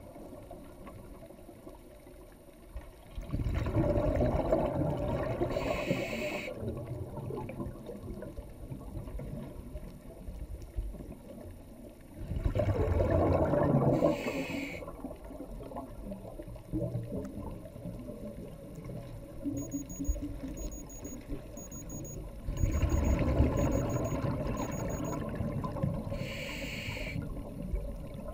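A scuba diver breathing through a regulator underwater: three long bursts of exhaled bubbles, each a few seconds long, each followed by a short hiss as the diver breathes in.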